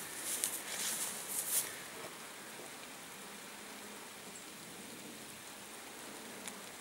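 Steady hiss of light rain falling on forest foliage, with a few louder bursts of noise in the first two seconds and a single click near the end.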